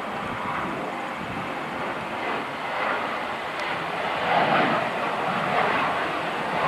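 Jet engines of a Boeing 737 airliner running at takeoff thrust as it climbs out, a broad steady roar that grows louder about four seconds in.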